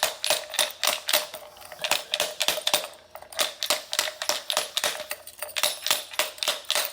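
A jammed challenge lock being tapped and knocked over and over to free it after it locked up: a fast, irregular run of sharp metallic clicks, about five a second, each with a short ring.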